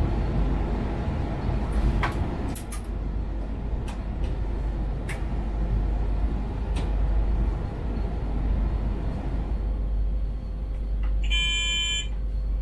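Talent 3 electric multiple unit running along the track, heard in the driver's cab: a steady rumble of the wheels on the rails with a low hum and a few sharp clicks. Near the end a short high electronic beep sounds in the cab for under a second.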